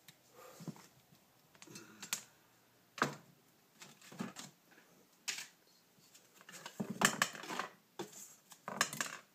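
Irregular knocks and clicks of metal carburetor parts and tools being handled and set down on a table. There is a sharp knock about three seconds in and a quick run of clatter about seven seconds in.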